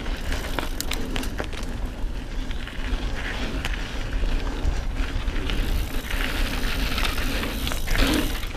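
Mountain bike ridden fast on a dirt singletrack: tyres running over packed dirt, with sharp rattles and clicks from the bike over bumps about a second in and wind rumbling on the microphone. The rush grows louder in the second half, peaking as the bike drops through a dip near the end.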